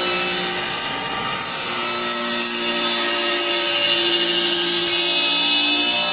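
Automatic CNC wood lathe center sanding a curved wooden leg: abrasive belt heads rasp steadily against the wood over the steady whine of the machine's motors, and some of the motor tones shift in pitch as the heads travel along the piece.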